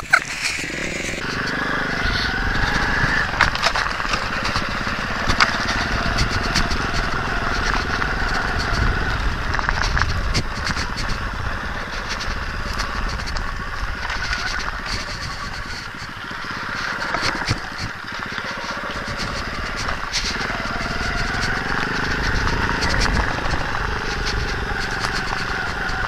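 A 125cc single-cylinder pitbike engine running under throttle while being ridden over a rough forest trail. The engine note rises and falls with the throttle, with short knocks and rattles from the bumps. About two-thirds of the way through it eases off briefly, then picks up again.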